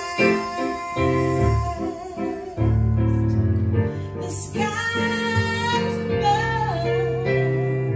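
A woman singing with keyboard accompaniment, holding long notes with vibrato over sustained chords.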